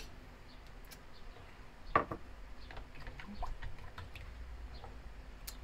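A metal spoon scraping a ceramic bowl and stirring batter in a plastic tub: scattered light clicks and taps, with one louder knock about two seconds in.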